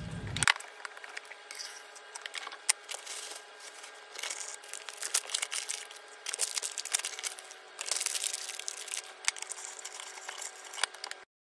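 Crinkling and rustling of a plastic bag of ground coffee being handled and tipped into a drip coffee maker's filter basket, in uneven bursts with several sharp clicks, over a faint steady hum. It cuts off suddenly near the end.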